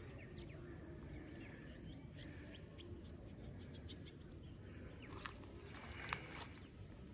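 Quiet waterside ambience with faint, scattered bird chirps, and two brief sharp clicks about five and six seconds in.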